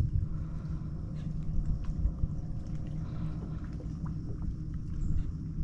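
Low steady rumble with a faint hum, typical of a motorboat running some way off, with small scattered knocks.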